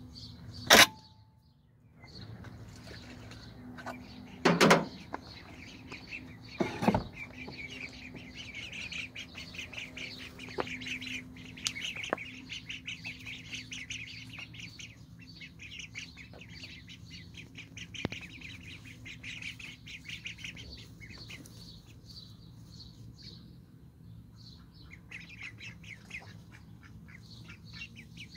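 Young Indian Runner ducklings peeping in a rapid, continuous chatter, with a short lull a few seconds before the end. Near the start a sharp click and then two loud knocks come from the wooden coop door being unbolted and swung open.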